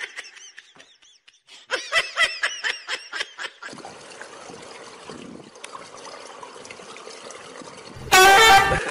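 Repeated high chirping calls, then the steady wash of water in a swimming pool. About eight seconds in, a sudden loud splash as a swimmer surges up out of the water at the pool's edge.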